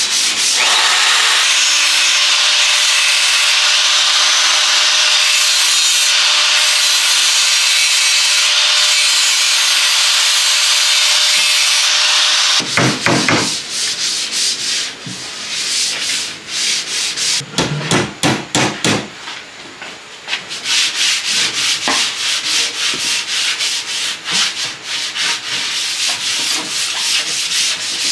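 Handheld power sander running against a wooden board, steady with a faint hum for about twelve seconds, then in short, uneven strokes as it is pressed and moved over the wood.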